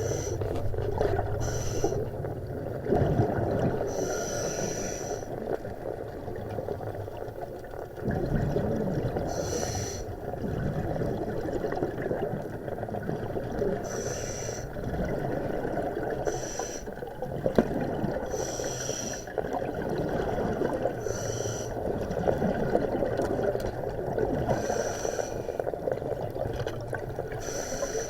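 Water sloshing and splashing, with a short brighter splash every two to four seconds.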